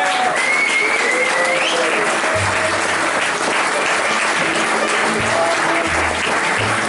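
Audience applauding steadily. About two and a half seconds in, low bass notes and plucked strings start under the applause as the bluegrass band gets ready to play.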